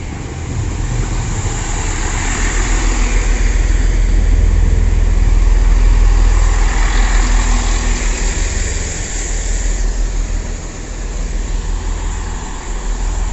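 GWR Class 165 Networker Turbo diesel multiple unit pulling into the platform and rolling slowly past, its diesel engines and wheels giving a deep rumble with a high hiss over it. It is loudest about five seconds in and then eases off as the train slows to a stop.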